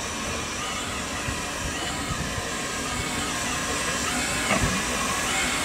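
GWR 1500 class pannier tank steam locomotive No. 1501 running slowly closer, its steam hissing steadily and growing louder, with a couple of sharp clanks about four and a half seconds in and another at the end.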